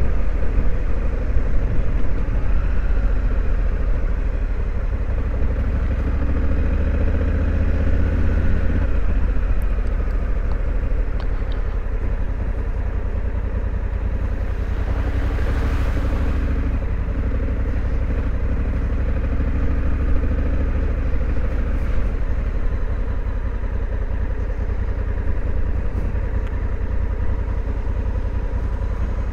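Honda Africa Twin's 1084 cc parallel-twin engine running steadily as the motorcycle rides along, with a deep low rumble. A brief hissing rush comes about halfway through.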